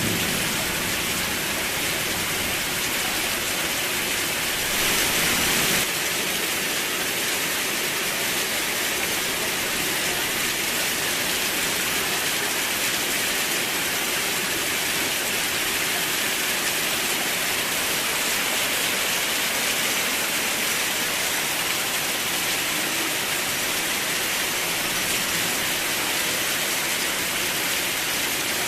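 Steady rain falling, an even hiss of drops, briefly louder for about a second around five seconds in.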